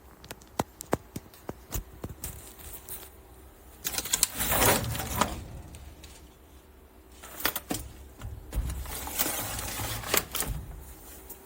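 Handling noises: a string of sharp clicks and taps, with two longer rustling stretches about four and nine seconds in.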